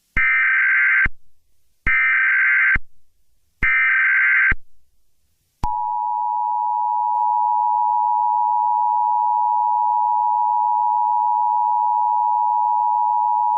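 Emergency Alert System tones: three short data bursts of the SAME header, each about a second long and a second apart, then the EAS two-tone attention signal, two steady tones sounded together and held for about eight seconds, which heralds a spoken alert.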